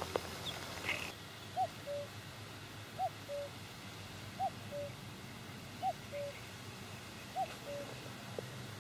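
A bird calling in the distance: a two-note call, a short higher note then a slightly lower one, repeated five times about every second and a half.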